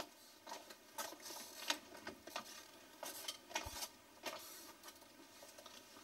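Faint footsteps on a hard floor with irregular light clicks and knocks as a wooden door is unlatched and opened, including a soft low thud a little past halfway.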